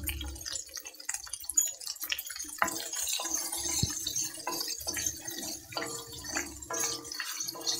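Shallots, curry leaves and whole spices sizzling in hot oil in an iron kadai, with a wooden spatula scraping and knocking against the pan as they are stirred every second or so.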